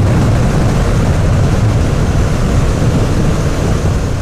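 CFMOTO 650NK's parallel-twin engine running while riding, a steady low drone mixed with wind rush on the microphone.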